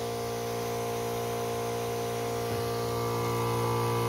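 Firman FKS16 electric knapsack sprayer's 12 V diaphragm pump running with a steady hum while spraying water from the wand's nozzle, growing slightly louder about three seconds in. The pump is working normally again on a newly fitted battery.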